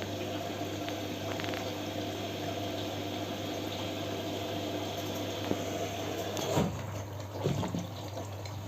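Siemens washing machine filling with water for its final rinse: water running into the drum over a steady hum. About six and a half seconds in, the sound shifts with a few mechanical knocks.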